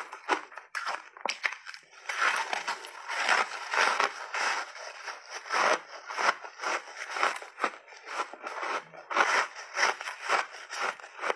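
Refrozen crushed ice mixed with berries crunching as it is bitten and chewed, close to a clip-on microphone. There are separate sharp cracks at first, then a dense, continuous crackling crunch from about two seconds in.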